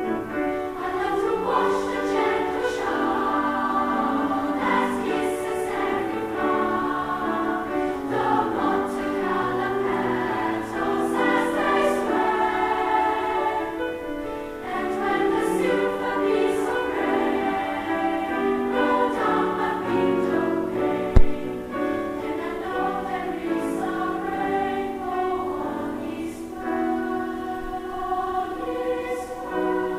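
Girls' treble choir singing a song, voices moving through sustained sung notes, with one brief low thump about two-thirds of the way through.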